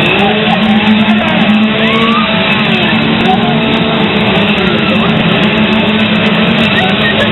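Loud rock music mixed with the steady buzz of chainsaw engines running, with pitch glides as they rev.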